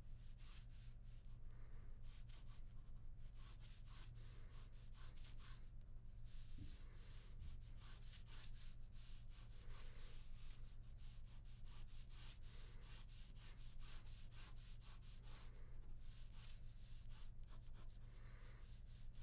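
Ballpoint pen scratching on paper in runs of quick, short sketching strokes with brief pauses between them, faint over a low steady hum.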